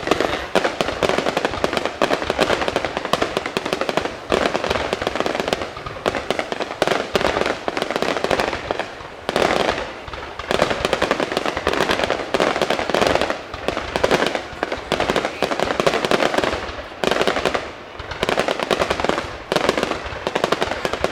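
Fireworks display: a dense, continuous barrage of bursts and crackling explosions with only brief lulls.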